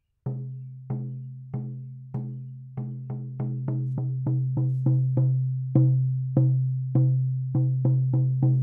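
14-inch shaman frame drum struck in a steady beat, each stroke leaving a low ring that carries into the next. The beat starts slow, about one stroke every 0.6 seconds, and quickens to about three a second a few seconds in.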